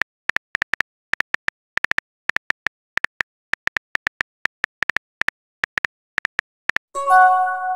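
Texting-app keyboard sound effect: short, identical key clicks, several a second, one for each letter typed. Near the end a short multi-note chime sounds as the message is sent.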